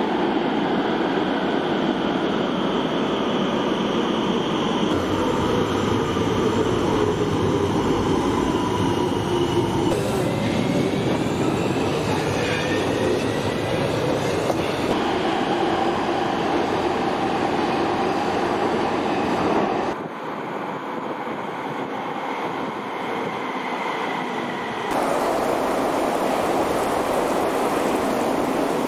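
Electric metro trains of Rotterdam's RET network (Bombardier-built) running through underground stations, heard in short clips that change abruptly about every five seconds. A steady running rumble carries electric motor whine that glides in pitch, with wheel and rail squeal.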